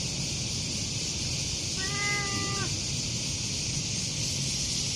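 A cat's single meow, held level for just under a second and dropping at the end, about two seconds in, over a steady high hiss.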